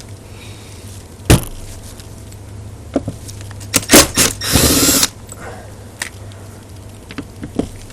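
Workshop tool handling: a sharp click, a few knocks, and about halfway through a brief half-second burst of power-tool noise, over a low steady hum.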